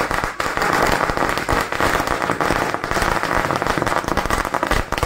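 A string of firecrackers going off, a dense run of rapid cracks and pops without a break.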